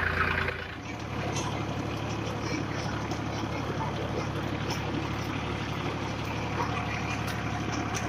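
Tractor's diesel engine running steadily under load while pulling a potato digger.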